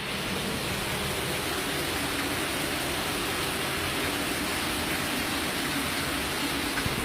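Torrential rain pouring down in a dense, steady hiss.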